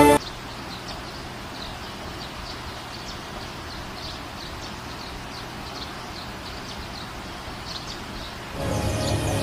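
Forest ambience soundscape: a steady hiss with faint, high bird chirps repeating on and off. Music comes back in near the end.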